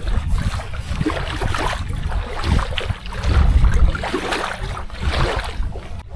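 Wind buffeting the microphone in uneven gusts, a heavy low rumble with rushing noise above it.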